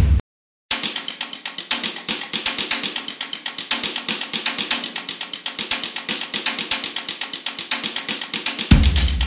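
Background music: a drum-driven track that cuts out briefly just after the start, continues with quick, even ticking percussion without any bass, then comes back in full with a heavy kick drum near the end.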